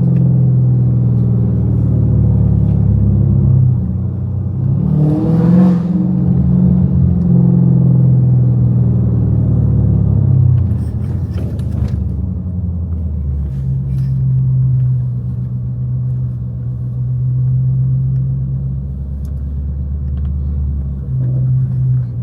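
Catless Hellcat's supercharged 6.2-litre HEMI V8 exhaust running under way with a deep steady drone, with a short rev about five seconds in before it settles, a little quieter in the second half.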